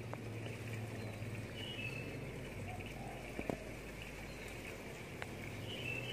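Quiet outdoor ambience: a few short bird chirps, about two seconds in and again near the end, over a low steady hum, with a few faint clicks.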